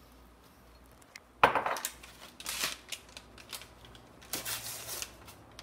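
A sharp knock about a second and a half in, then irregular crinkling and rustling of a foil onion soup mix packet being handled and worked at to get it open.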